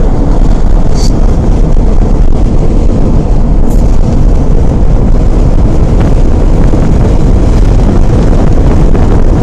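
Steady, loud road and wind noise inside a moving car's cabin.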